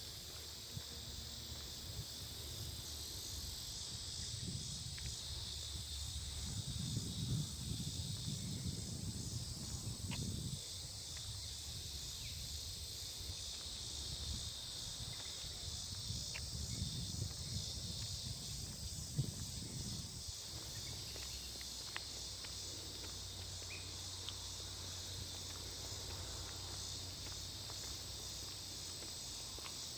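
Steady high-pitched chorus of crickets and other insects, trilling and pulsing without a break. A low rumble swells and fades twice beneath it, about five seconds in and again about sixteen seconds in.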